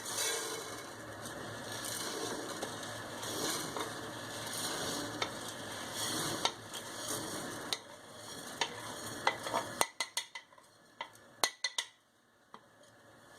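Uncooked rice toasting in hot oil in a frying pan, sizzling as a spoon stirs it and scrapes the pan. About ten seconds in the sizzling cuts off, leaving a few sharp taps of a utensil on the pan.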